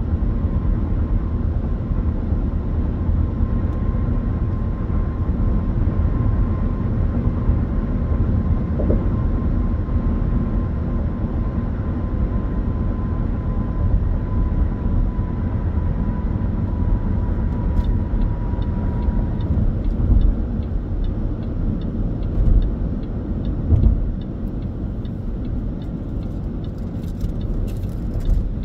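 Car cruising on a highway, heard from inside the cabin: steady tyre and road rumble with engine noise. A few heavier bumps come in the last third, and a light, regular ticking starts about two-thirds of the way through.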